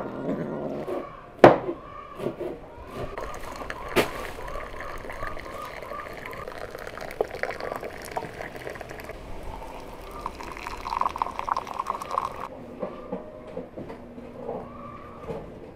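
Water running from a samovar's tap into a cut-glass tumbler, filling it. Two sharp knocks, about two and a half seconds apart, come before the pouring, the first the loudest sound in the stretch.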